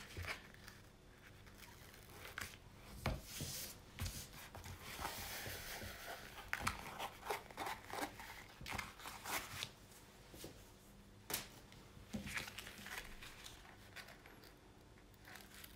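Plastic and paper packaging crinkling and rustling, with scattered light taps, as a diamond painting canvas is handled. A longer rustle comes about five seconds in.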